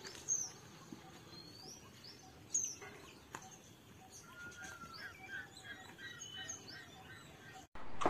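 Several small birds chirping and calling over a faint outdoor hiss, with short high chirps and a flurry of warbling notes in the middle. The sound cuts off abruptly near the end.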